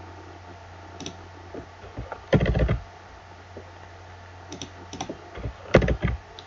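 Keystrokes and clicks on a computer keyboard and mouse: scattered single clicks and two short loud bursts of keystrokes, about two and a half and six seconds in, over a steady low electrical hum.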